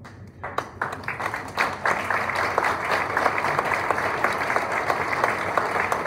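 Audience applauding: a few scattered claps about half a second in, quickly building to steady applause.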